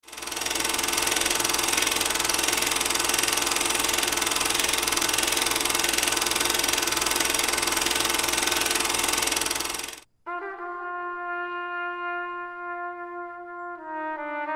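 Film projector running, a rapid even clatter with hiss, which cuts off abruptly about ten seconds in. Held brass chords led by trumpet then start, moving to a new chord near the end.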